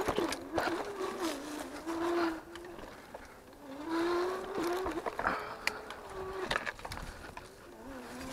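Electric bike's motor whining, its pitch rising and falling with speed in stretches of about a second, with clatter and knocks as the bike bumps over a rough dirt trail.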